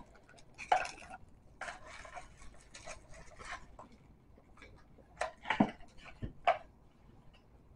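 Small product boxes and paper packaging handled on a desk: scattered rustles and light clicks and taps, with a few louder knocks about two-thirds of the way through.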